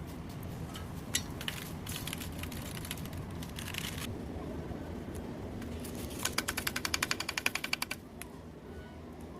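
A fast, even run of sharp clicks, about ten a second for nearly two seconds, over a steady low hum, after scattered clicks and knocks of hands-on work.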